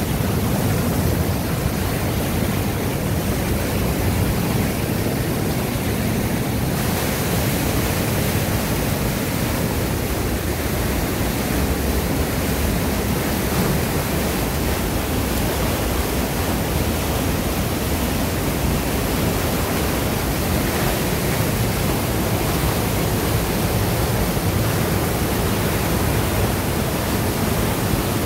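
Waterfall pouring and churning over rocks: a steady, loud rush of falling water. A little under seven seconds in, its hiss grows brighter.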